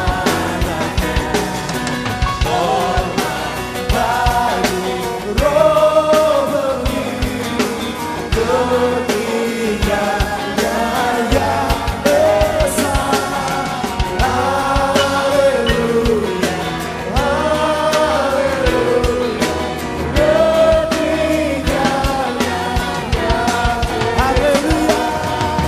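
Live band music with a male lead vocalist singing a held, wavering melody over a full band and drum kit.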